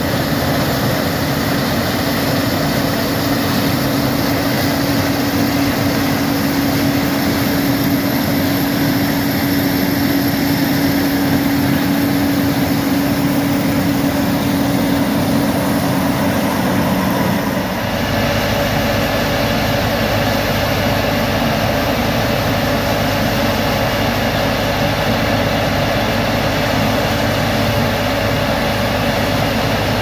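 Gleaner M2 combine running steadily while harvesting corn, its engine and threshing machinery giving a constant drone. A little past halfway it changes abruptly to a different steady machine drone with a deeper hum.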